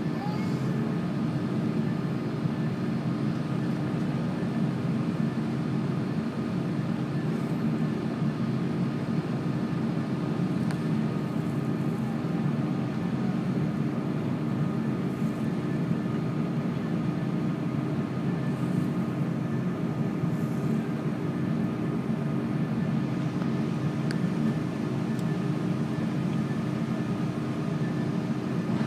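Cabin noise inside an Airbus A330-300 airliner as it taxis: a steady, even drone with a few faint steady whining tones above it.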